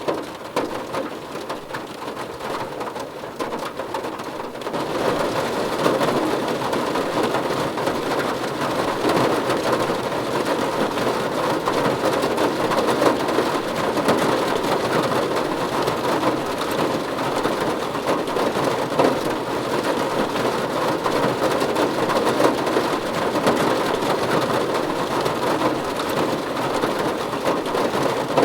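Heavy rain drumming on a car's roof and windows, heard from inside the cabin: a dense, steady patter that grows heavier about five seconds in.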